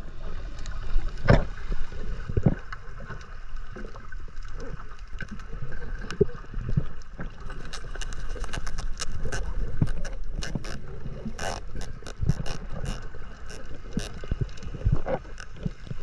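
Underwater sound picked up by a diver's camera: a steady low rumble of water and movement, a few dull thumps in the first seconds, and sharp clicks and crackles that grow thicker about halfway through.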